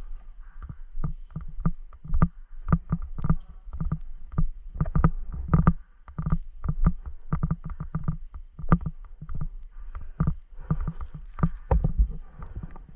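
A quick, irregular run of thuds and knocks, about two or three a second, with sharper clicks among them.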